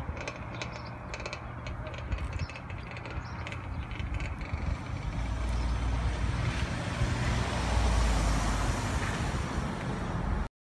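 A car drives past close by, its engine rumble and tyre noise growing louder as it nears, then cuts off suddenly near the end.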